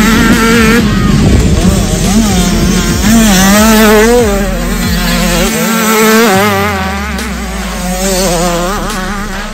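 Small two-stroke youth motocross bikes racing past, their engines revving up and down quickly as the riders work the throttle through a corner; the sound falls off over the last few seconds.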